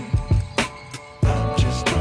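Background music with a steady drum beat and bass line, dropping quieter for about half a second midway before the beat comes back in.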